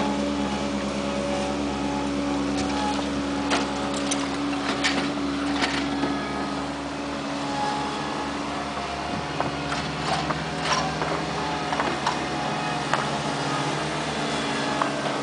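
Engine of a paving-stone laying machine running steadily, with sharp clacks and knocks now and then. The engine note shifts lower about nine seconds in.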